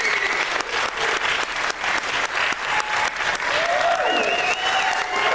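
Audience applauding, with a few cheering voices rising over the clapping in the second half.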